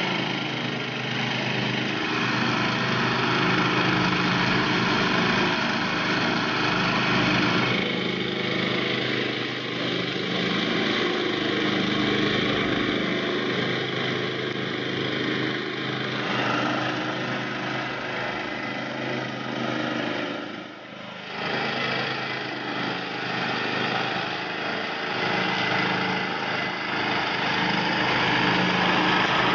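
Grillo CL 62M walk-behind mower's petrol engine running steadily while mowing grass. Its tone shifts abruptly a couple of times, and it dips briefly about two-thirds of the way through.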